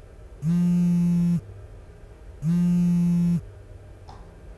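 A woman humming one steady low note with closed lips, twice, each about a second long with a pause of about a second between, like a meditative calming hum.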